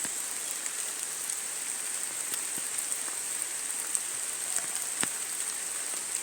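Steady rain falling: an even hiss with many scattered drop ticks and a few louder drips, one about five seconds in.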